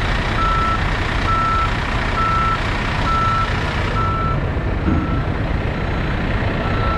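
Backup alarm on construction equipment beeping at a steady pace of about one beep a second, clear for the first few seconds and then fainter. Under it a dump truck engine runs with a steady low rumble.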